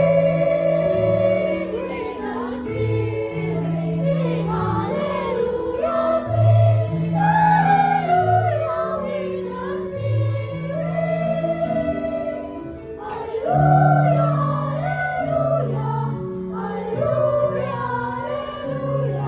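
Church choir singing, with several voice parts moving over held low notes.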